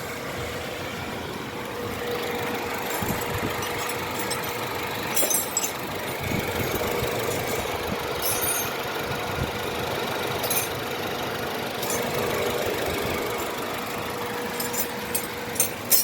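Honda Fit's four-cylinder engine idling steadily, with no clacking from its accessory-belt tensioner, which has just been replaced. A few light clicks are heard, several near the end.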